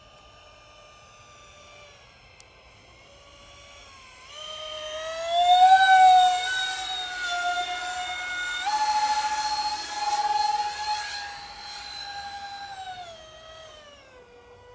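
Electric ducted fans of a radio-controlled Su-35 model jet whining, throttled up so the pitch climbs about four seconds in and steps higher again near nine seconds. The pitch then drops back near the end.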